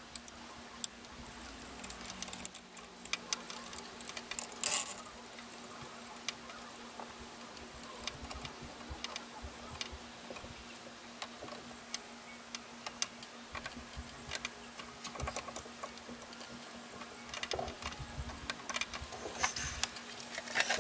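Irregular small metallic clicks and taps of a screwdriver and parts being worked inside an open Philips N4504 reel-to-reel deck during reassembly, with a louder clatter about five seconds in and again near the end. A faint steady hum runs underneath.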